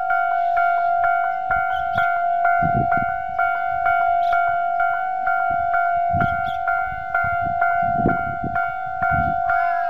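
Japanese electronic level-crossing warning bell ringing in its standard tone, a steady repeating ding about two and a half strikes a second. Gusts of wind buffet the microphone underneath.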